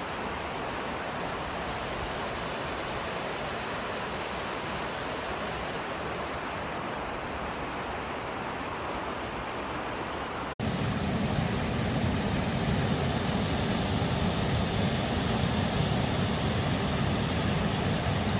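Waterfall rushing, a steady roar of falling water. About ten seconds in, the sound breaks off for an instant and comes back louder and deeper.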